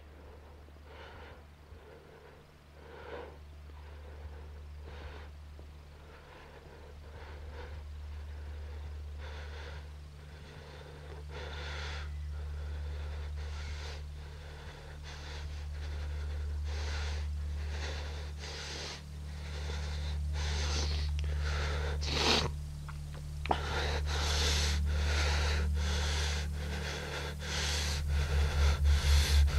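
A man's heavy, audible breathing, one breath about every second at first, growing louder and quicker, over a low steady drone. Near the end the drone starts throbbing about three or four times a second.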